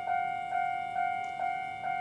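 Japanese railway crossing warning bell ringing its electronic 'kan-kan' alarm: a bright ringing tone struck over and over, a little more than twice a second.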